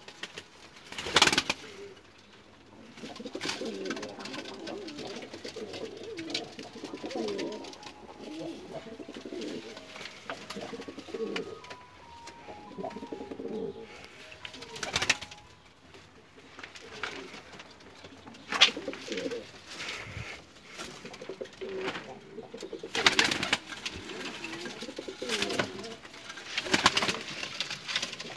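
Domestic pigeons cooing repeatedly, several birds overlapping. A few short, sharp sounds stand out above the cooing, the loudest about a second in.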